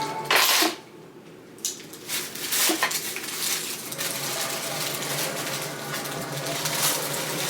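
Takeout food packaging being handled: a loud crinkling rush about half a second in, a few sharp clicks and clatters around two to three seconds in, then steady lighter handling noise.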